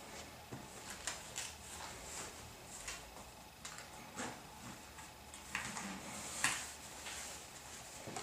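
Rustling and light knocks of a tall boot being pulled up the leg over the trousers, in irregular short swishes, with one sharper knock about six and a half seconds in.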